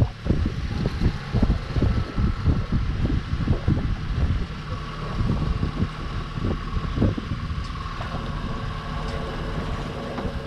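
Glass-bottom boat's engine running with a steady drone, under gusty wind buffeting the microphone that eases off after about four seconds.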